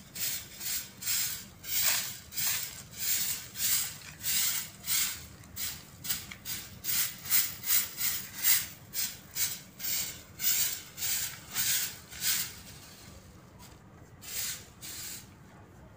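A stiff long-handled broom sweeping a paved street, about two rhythmic swishing strokes a second. The sweeping stops about three-quarters of the way in, with a couple of fainter strokes near the end.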